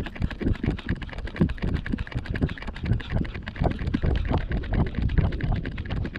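Dense, irregular clicking and low thumps from a 360 camera on a handheld selfie stick carried at a walk: handling noise and wind on the microphone.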